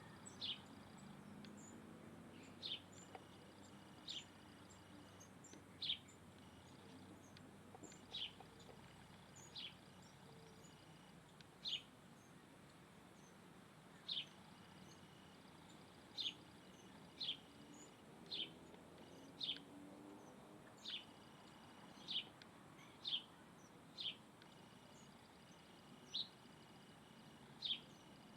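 A bird repeating a short, high call note, each note sliding quickly downward, roughly once every second or two.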